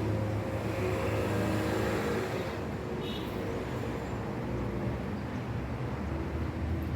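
Steady low hum of a running vehicle engine and road traffic, with a brief high chirp about three seconds in.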